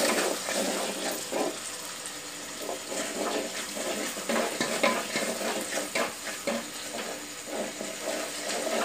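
Onion and tomato masala sizzling as it fries in oil in a metal pot, with a slotted spoon stirring and scraping the pot in many short strokes.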